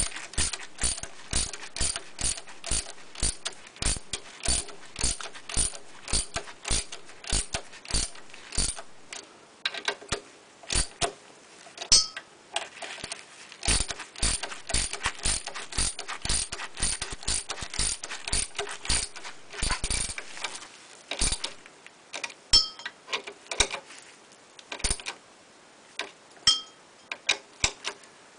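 Socket ratchet wrench on an engine's flywheel nut, its pawl clicking as the handle is worked back and forth: sharp clicks about two a second at first, then more irregular with short pauses.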